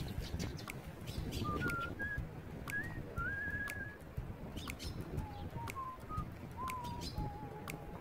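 Sparrows chirping in short, sharp calls, over a slow whistled tune of steady held notes that step up and then down in pitch.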